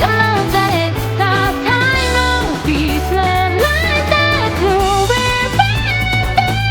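Pop song playing as background music: a gliding melody over steady, repeating bass notes.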